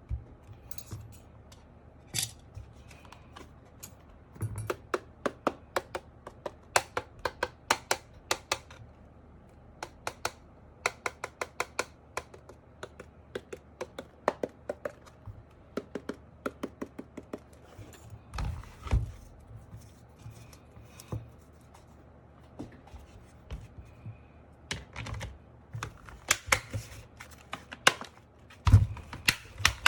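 Mechanical keyboard clicking and tapping in irregular runs of sharp plastic clicks with short pauses, and a few heavier knocks.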